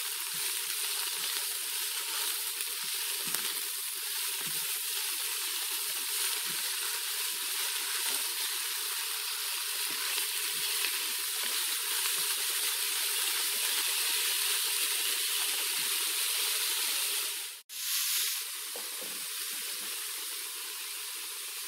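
Chopped amaranth greens with onion and garlic sizzling in hot oil in an electric multi-cooker pot: a steady frying hiss that drops out for a moment about three-quarters of the way through.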